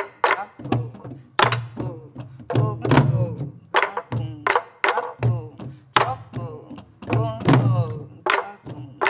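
Several pansori barrel drums (sori-buk) played together in a rhythmic cycle: sharp wooden stick clacks on the drum shells alternating with low palm booms on the drumheads, several strokes a second, likely the jungjungmori pattern.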